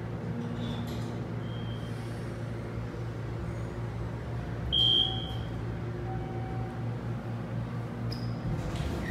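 Schindler hydraulic elevator car riding up with a steady low hum, and a single short high-pitched beep about halfway through.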